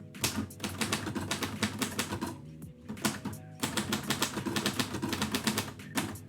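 Keys striking on a 1949 Royal Quiet Deluxe manual typewriter in quick runs, with a short pause about three seconds in, over quiet background music.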